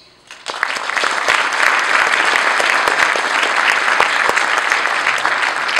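Audience applauding: the clapping starts about half a second in and holds steady.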